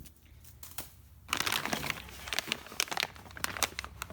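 Packaging crinkling and rustling as it is handled: quiet at first, then a run of irregular crackles starting about a second in.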